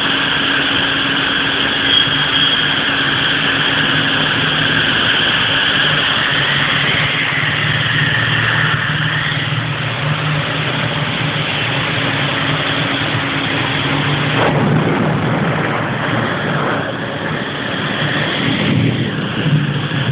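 Heavy rain falling steadily, with a low, even hum of vehicle engines from the road.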